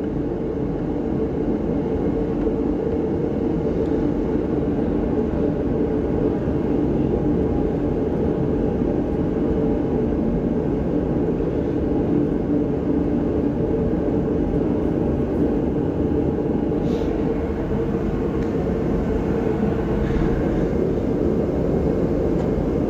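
A steady mechanical drone with a low, even hum runs unchanged throughout, and a few faint clicks come near the end.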